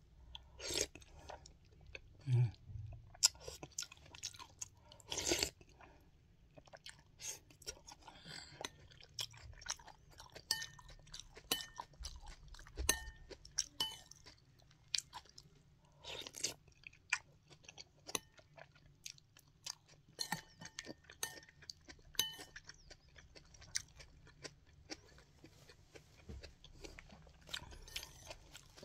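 Close-up chewing of es campur, a milky mixed ice dessert with jelly cubes, with irregular wet crunches and clicks, and a metal spoon clicking against the ceramic bowl.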